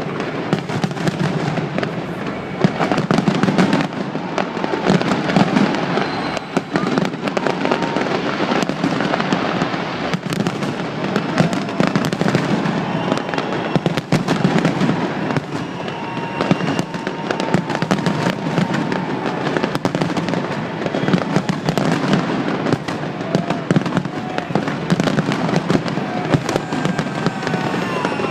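A large fireworks display: rapid, continuous bangs and crackles with no let-up.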